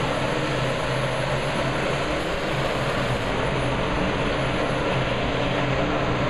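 Pulling tractor's engine running hard and steady under load during a pull.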